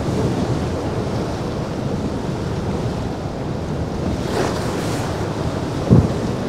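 Rough surf breaking and spraying around a motor yacht's hull, with wind rushing on the microphone. A louder rush of spray comes about four seconds in, and a short thump comes near the end.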